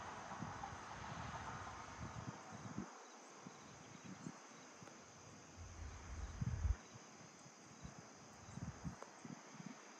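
Faint, steady dawn chorus of crickets and other insects trilling in a farm field. Occasional low bumps of wind buffet the microphone, the strongest about six and a half seconds in.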